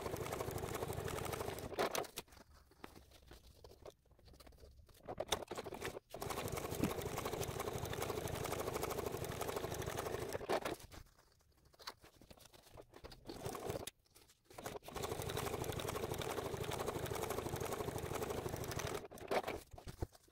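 Juki DX7 sewing machine stitching a fabric binding strip onto a foam board, running in four spells of a few seconds each with short stops between.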